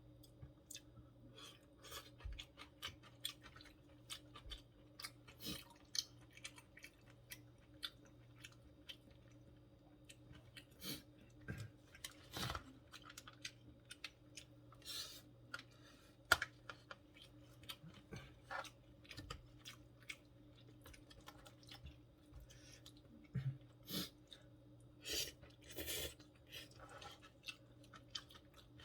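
A person chewing food with many small, irregular wet smacks and crunches, over a faint steady hum.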